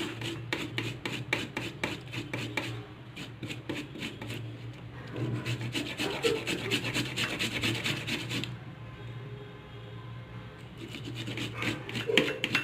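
Fresh ginger root, with the last bits of tulsi leaves, rubbed back and forth on the fine side of a hand grater: a rapid run of rasping strokes that thins out for a couple of seconds past the middle and picks up again near the end.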